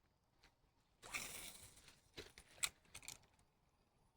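Mostly quiet, with a short rustling swish about a second in and a few light clicks soon after: handling noise from fishing gear.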